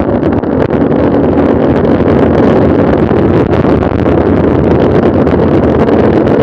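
Loud, steady wind noise buffeting the microphone of a camera riding along on a mountain bike, mixed with the low rumble of the ride.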